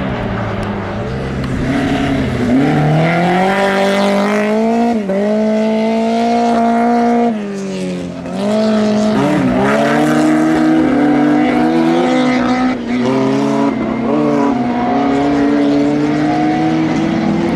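Tuned Fiat 600 race car engine run hard: its pitch climbs and drops briefly at each gear change. Around eight seconds in it goes quieter and lower for about a second, as on a lift off the throttle, then winds back up and holds high.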